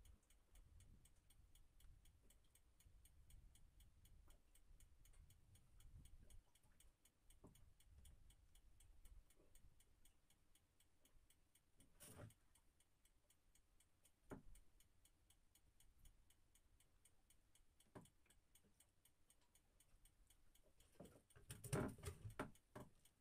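Near silence, with a few faint knocks of gear being handled in a wooden boat and a louder cluster of knocks and rustling near the end.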